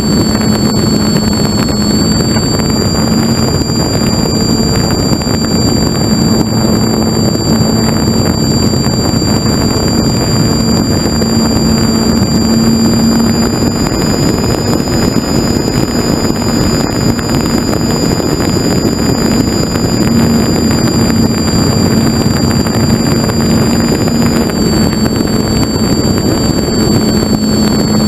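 Small propeller aircraft's motor running steadily in flight: a constant drone with a thin, steady high whine above it and rushing air, heard from a camera mounted on the aircraft.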